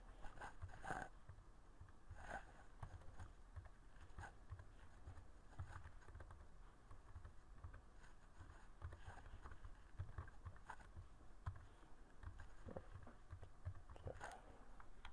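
Faint computer keyboard typing: scattered single key clicks with small soft knocks, over quiet room tone.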